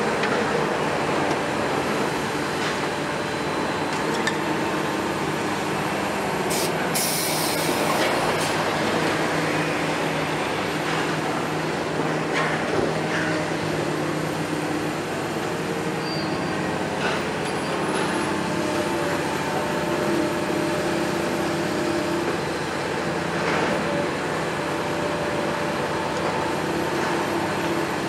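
Kiesel KMC 600 demolition excavator's six-cylinder Isuzu diesel running steadily under work, with scattered knocks and clatter of concrete and brick debris as the boom tears at the building. A brief sharp noise stands out about seven seconds in.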